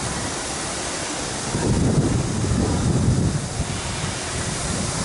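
Animatronic Styracosaurus model in motion over a steady hiss. A louder low rumble swells about a second and a half in and eases about two seconds later.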